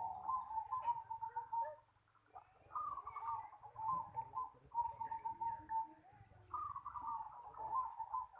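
Zebra dove (perkutut) cooing: four phrases of quick, rippling staccato coos, each opening on a higher note and then running on evenly at a lower pitch.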